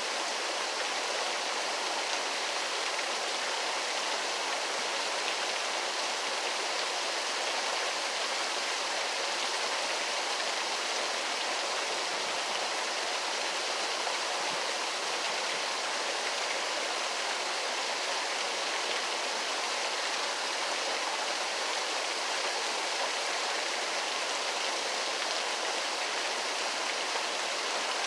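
Waterfall: a steady rush of falling water, an even hiss with no breaks or changes.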